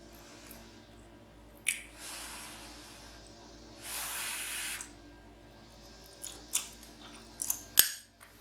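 Mukbang eating sounds: a utensil clicking sharply against the dish, once about two seconds in and several times near the end, with two longer hissing mouth or breath noises in between, over a faint steady hum.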